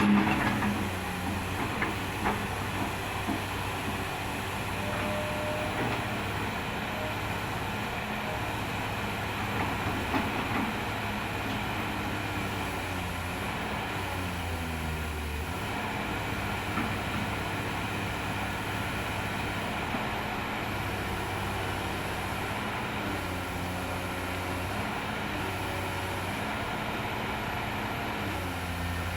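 Excavator's Isuzu 6BG1 diesel engine running steadily, its pitch shifting in small steps.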